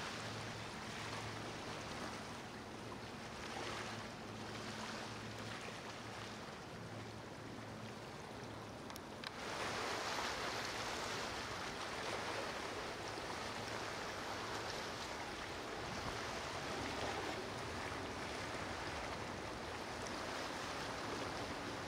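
Steady rushing of river water with a faint low hum underneath. A click comes about nine seconds in, and after it the rushing is louder and brighter.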